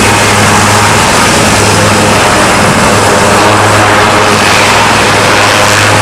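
HAL Light Combat Helicopter running on the ground, its rotors turning and its twin Shakti turboshaft engines running: a loud, steady low hum under a broad rushing noise as it taxis.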